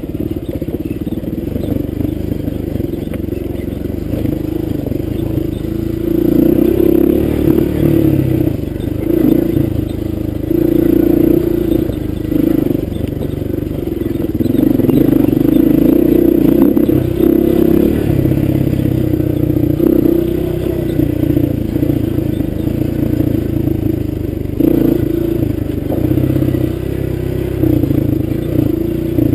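Honda dirt bike engine running under load on a rough trail, revving up and easing off again and again as the throttle is worked, louder from about six seconds in.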